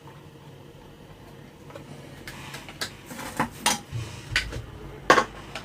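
Small hard tools clinking and clacking as they are picked up and set down on a workbench: a quiet stretch, then about half a dozen sharp knocks in the second half.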